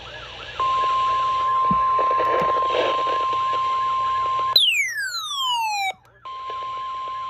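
Weather radio alert tone: a steady, high single-pitch beep held about four seconds. It breaks into a falling glide and starts again near the end, over a fast, repeating warble.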